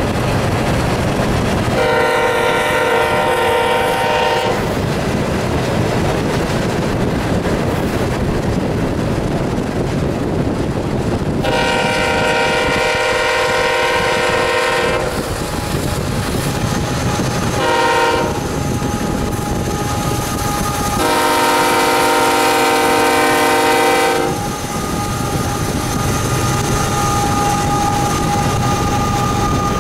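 Diesel freight locomotive horn sounding the grade-crossing signal: two long blasts, one short and a final long, over the steady rumble and clatter of a long freight train of hopper cars rolling by.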